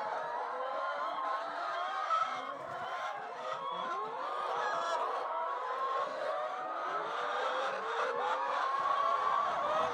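A flock of chickens calling all at once in the chicken house, many overlapping wavering calls with no break.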